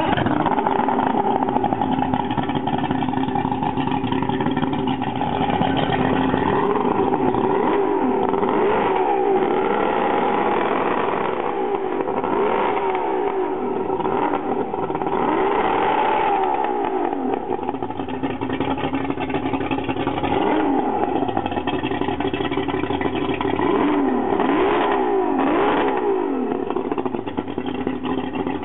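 Mercury 200 hp 2.5-litre V6 two-stroke outboard running on a stand, revved up and let back down several times, with quick pairs of revs later on.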